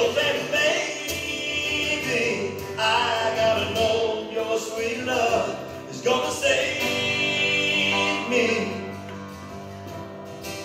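Live pop-rock duo: a man singing into a microphone over acoustic guitar and Roland keyboard. The music grows quieter near the end on held notes.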